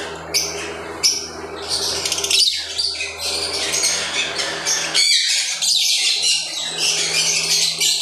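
Many caged lovebirds calling at once: dense, overlapping high-pitched squawks and chirps, with a steady low hum underneath.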